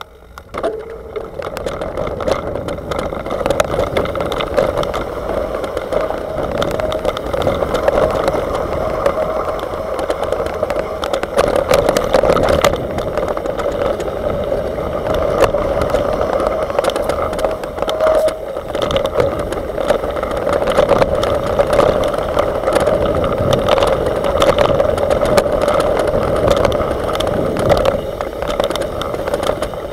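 Mountain bike riding fast down a dirt trail, heard through a handlebar-mounted camera: a steady rush of tyres on dirt and wind, with constant rattling and small knocks from the bumps. The noise builds over the first couple of seconds as the bike picks up speed.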